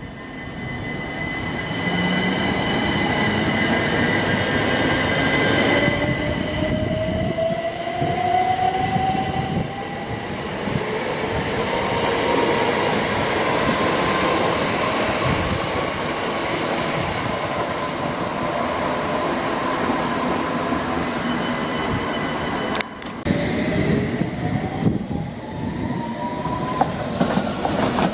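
Train pulling away, its traction motors whining and rising steadily in pitch as it accelerates, over wheel and rail noise. About 23 seconds in the sound cuts abruptly to another train starting off with the same rising whine.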